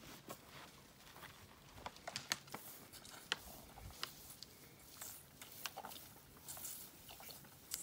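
Young elephant holding a milk bottle in its trunk and drinking from it: faint, irregular clicks and soft rustles, with a few sharper ticks.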